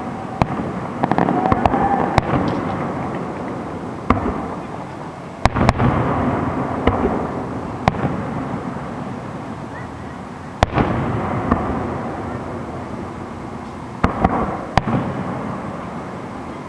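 Aerial fireworks shells bursting overhead: a dozen or so sharp bangs spaced a second or a few seconds apart, each trailing off in a long echoing rumble. The loudest bursts come about five and a half and ten and a half seconds in.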